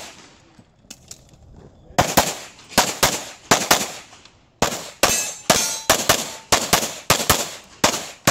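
Pistol shots during a practical-shooting course of fire: a lull of about two seconds, then a long string of close to twenty shots, many fired in quick pairs, a few per second.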